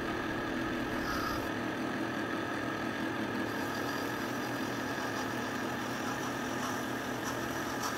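CNC mill running steadily with its spindle spinning round bar stock against a stationary cutting tool held in the vise, the mill used as a lathe: an even machine hum and hiss with a steady high whine.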